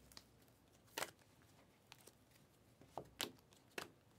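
Stiff glossy Panini Prizm trading cards being flicked over one by one from a stack held in the hand: a few short, crisp card snaps, one about a second in and three close together after three seconds.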